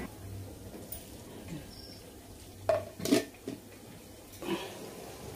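Stainless steel clinking and knocking: a steel plate set down over a steel bowl, with two sharp clanks about three seconds in, the louder one ringing briefly, and a softer knock a little later.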